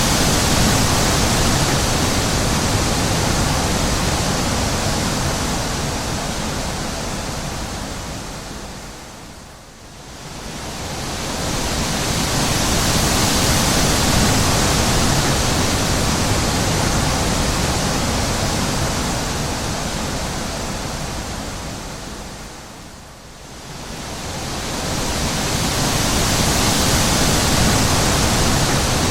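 Wind blowing in long, slow gusts: a steady hiss that swells and fades, dying almost away twice, about ten seconds in and again about twenty-three seconds in.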